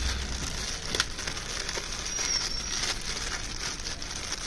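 Thin plastic packaging crinkling and rustling as hands unwrap a skipping rope from its bag, with one sharp click about a second in.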